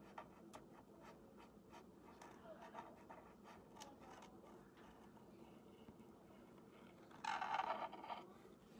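Faint scratching and small ticks of a paint pen's tip drawing lines over painted wood. Near the end comes one louder rasp lasting about a second.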